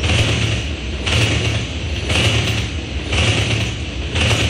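Freight train tank cars rolling past at speed: a steady low rumble of wheels on rail, with a sharper clatter that repeats about once a second.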